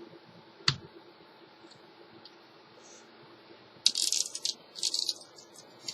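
A single sharp click, then a couple of short bursts of high scratchy rattling from about four to five and a half seconds in: a pocket knife blade scraping around inside the end of a plastic pen tube to widen it.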